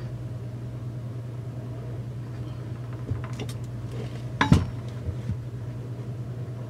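Light clinks and a sharp knock, the loudest about four and a half seconds in, from chainsaw parts being handled on a workbench, over a steady low hum.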